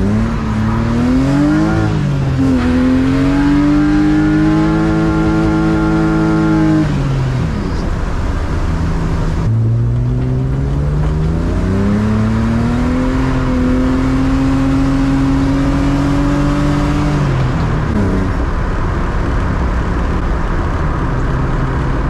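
BMW E36 drift car's engine accelerating hard twice. Each time the revs climb, hold steady at a high pitch for a few seconds, then drop off.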